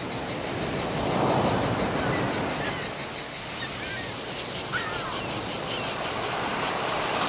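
Insects chirping in a fast, even pulse, about five chirps a second, over a steady hiss, with a few faint bird calls in the middle.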